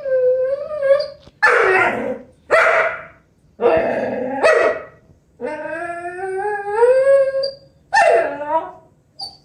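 Vizsla whining and barking: a high whine, then a few short, rough barks, then a long whine rising in pitch over about two seconds, and one more bark near the end.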